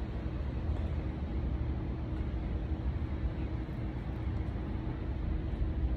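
Steady low rumble of city traffic, with a faint constant hum underneath.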